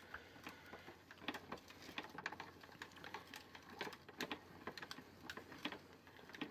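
Plastic crank and paddle mechanism of a 1993 Mattel McDonald's Happy Meal Hamburger Snack Maker toy being turned by hand, giving a run of faint, uneven clicks and ticks, a few each second.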